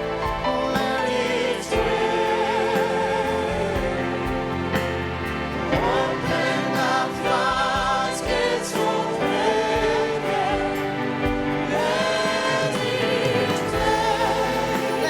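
A choir sings a gospel worship song over instrumental backing, the voices holding notes with vibrato.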